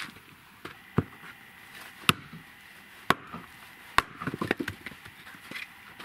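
Axe chopping firewood: four sharp blows about a second apart, then a quick run of lighter knocks.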